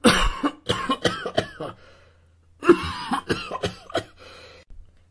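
A person coughing in two fits of several short coughs each, with a brief pause about two seconds in.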